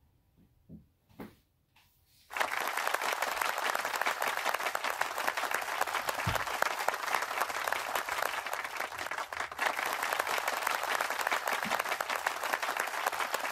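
Applause that starts suddenly about two seconds in and carries on steadily, after a few faint clicks.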